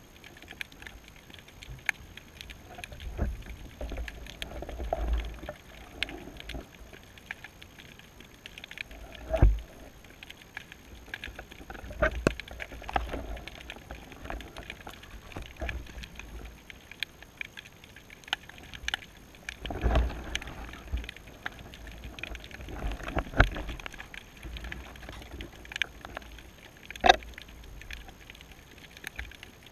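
Muffled underwater sound picked up through a camera housing on a baited seabed rig: uneven low thumps and surges of water with many scattered small clicks and knocks as the bait sways. Two sharper knocks stand out, a little under a third of the way in and near the end.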